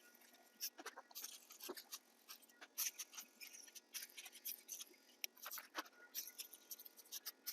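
Faint, irregular crackling and popping from foaming coil cleaner working into the AC condenser coils.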